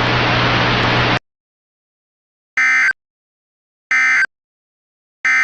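Emergency Alert System end-of-message signal: three short, identical bursts of warbling digital data tones about a second and a half apart, after about a second of hiss with a low hum that cuts off suddenly.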